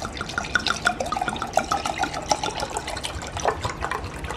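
Rosé wine poured from a bottle into a stemless glass tumbler: a steady stream splashing and gurgling into the glass as it fills.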